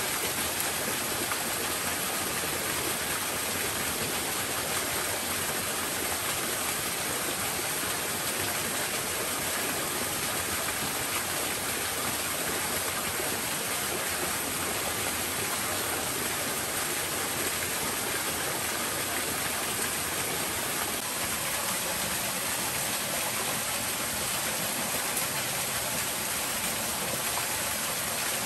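Small waterfall pouring over boulders into a rocky pool: a steady rushing splash of water.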